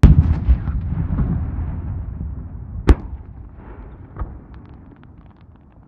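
Aerial fireworks shells bursting: a loud boom at the start with a long rumble that fades away, a sharp bang about three seconds in and a smaller one a little after four seconds, and scattered small crackles near the end.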